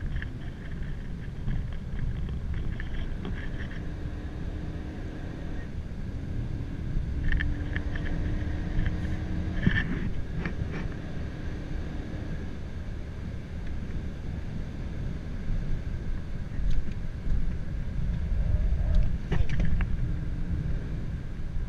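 Renault Mégane RS 275's turbocharged 2.0-litre four-cylinder engine running under load from inside the cabin, over heavy road and tyre rumble. Its note climbs slowly over several seconds in the first half, and a few short knocks come through around the middle and near the end.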